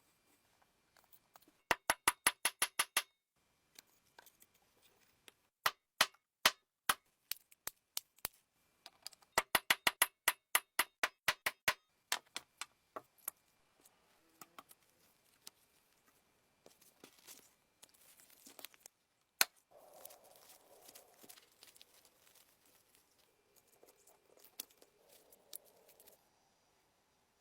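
Hand work on small parts: two quick runs of sharp clicks, about eight a second, with single clicks between them, then softer scraping and rubbing.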